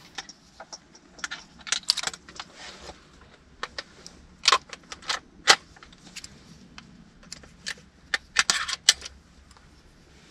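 Hunting gear being handled and sorted in a pickup truck's cab: an irregular run of sharp clicks, rattles and rustles, with the loudest clacks about four and a half and five and a half seconds in and a busy cluster near the end.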